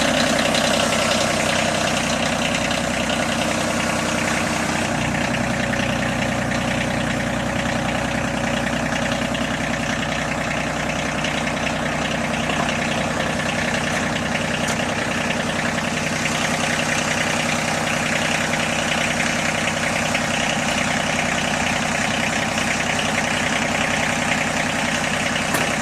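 Water-well drilling rig's engine running steadily at a constant speed, loud and unchanging.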